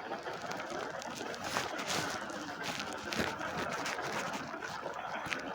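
A 'sound of Saturn' space recording playing: a dense, steady hissing and crackling noise with scattered clicks and faint sliding tones.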